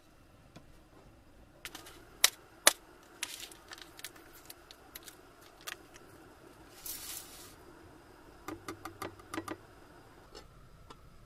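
Scattered light clicks and clinks of small hard objects being handled, with a short rustle about seven seconds in and a quick run of clicks a little later.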